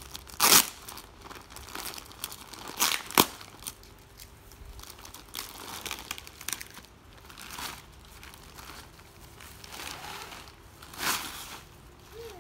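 Clear plastic packaging crinkling in irregular bursts as it is pulled off a long rolled canvas kit. The loudest bursts come about half a second in, twice around three seconds in, and again about eleven seconds in.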